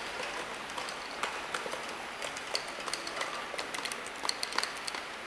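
Labeling machine running: a steady mechanical hiss with many irregular sharp clicks and ticks, which come thickest near the end.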